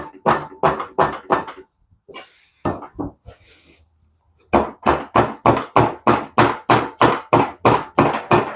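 Hammer tapping repeatedly on the water pump of a Mazda 12A rotary engine to break it free of gray silicone sealant. The blows are sharp, with a short ring after each. A quick run of strikes stops after about a second and a half, and a few lighter knocks follow. From about halfway, a steady run of some four strikes a second begins.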